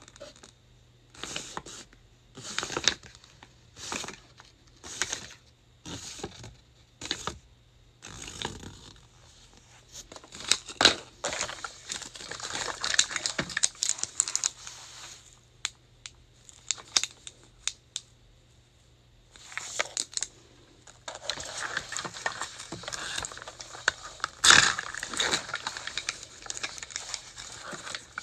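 Paper and plastic packaging crinkling as a Mini Brands surprise capsule is handled: short rustles about once a second at first, then longer stretches of crinkling and tearing as a small plastic wrapper is peeled off a miniature toy, loudest near the end. A faint steady low hum runs underneath.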